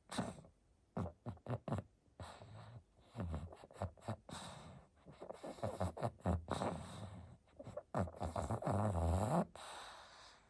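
A pug snoring and snorting in its sleep: a run of short, irregular noisy breaths and snorts, with a longer pitched breath near the end.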